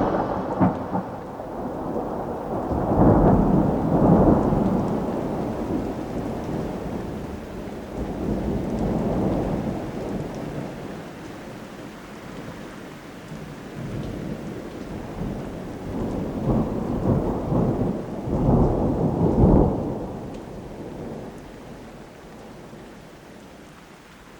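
Thunderstorm recording: rolling thunder over steady rain. Thunder swells about three seconds in, again near nine seconds, and twice close together toward the end, then the storm fades away.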